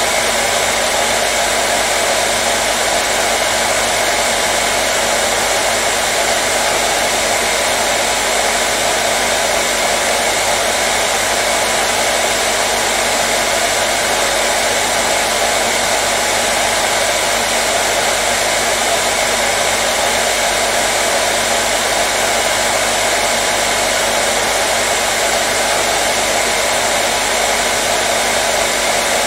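Hair dryer blowing continuously at a steady speed: an even, unchanging rushing noise with a faint steady hum under it.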